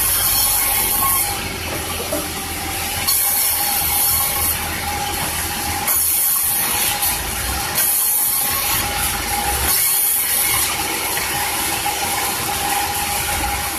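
Sawmill saw running and cutting durian wood: a steady machine hum, with a hissing cut of about a second that comes five times.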